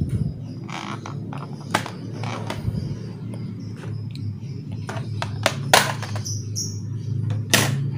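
Sharp clicks and knocks of a Toshiba Satellite L840 laptop's plastic bottom cover being handled and pried open by hand, scattered through, the loudest about three quarters of the way in, over a steady low hum.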